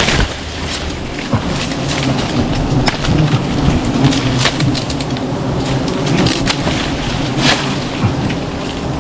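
Leaves and palm fronds rustling and crackling as they are handled, in irregular sharp crackles over a steady low rumble.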